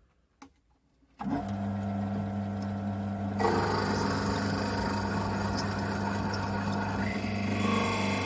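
Wood lathe switched on about a second in, running with a steady hum; a couple of seconds later a 32 mm Forstner bit in the tailstock drill chuck is fed into the spinning wooden blank, adding a louder rough drilling noise as it bores out the cavity.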